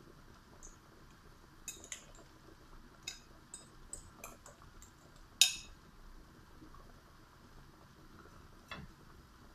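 A utensil clinking against a glass mixing bowl of beaten egg and carrot: a scatter of light, sharp clinks, the loudest about five and a half seconds in.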